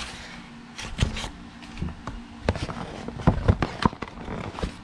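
Cardboard and paper packaging being handled while a product is unboxed: irregular taps, clicks and rustles, with a cluster of sharper clicks a little past the middle.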